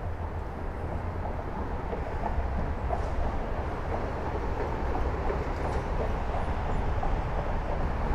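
Steady low rumble of traffic crossing the concrete highway bridge deck overhead, with a few faint clicks.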